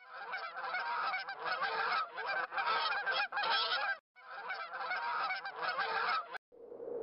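A flock of geese honking, many calls overlapping. It breaks off briefly about four seconds in and stops a little after six seconds in.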